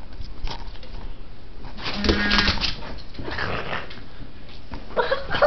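A dog whimpering briefly about two seconds in, followed by a few shorter sounds.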